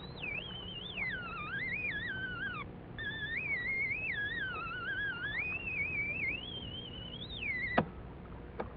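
Water-current flow-probe data played back from magnetic tape as a whistling tone whose pitch wavers up and down constantly, with a short break about a third of the way in, and stops abruptly near the end. The higher the pitch, the faster the current. Here the pitch is high and varies a lot: fast, surging flow from waves crashing into surge channels on an exposed coast.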